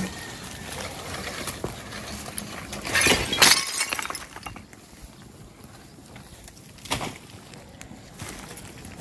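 Dry branches, brush and plastic trash crackling and rustling as debris is pulled up by hand, with a louder burst of crunching about three seconds in and a shorter one near seven seconds.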